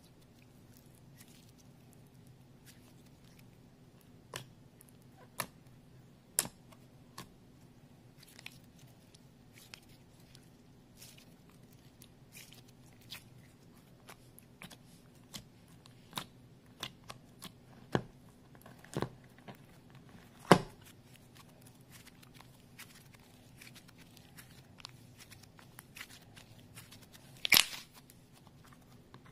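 Clear slime being stretched, poked and pressed by fingers, giving scattered sticky pops and clicks. Two louder pops come about two-thirds of the way through and near the end.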